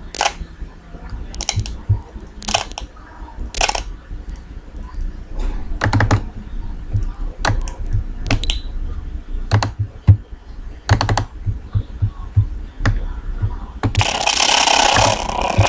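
Irregular clicking and tapping of a computer keyboard and mouse, a few sharp clicks a second with soft low thumps. About two seconds before the end a loud steady hiss starts.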